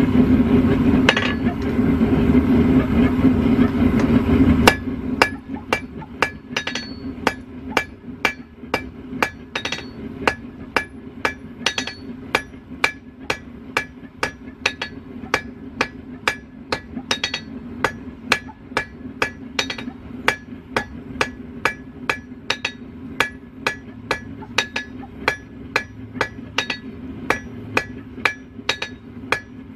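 Hand hammer forging a red-hot steel rod on an anvil: sharp ringing blows at about two a second. Under them runs the steady roar of the propane forge burner, loud for the first five seconds, then cutting off suddenly to a lower hum.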